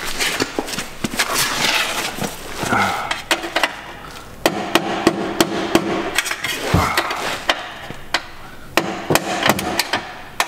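Rubber mallet striking a BMW M2's stock exhaust tip to knock it off the tailpipe, many sharp knocks in quick, irregular succession, most of them in the second half. The tip is stuck fast and needs hard blows.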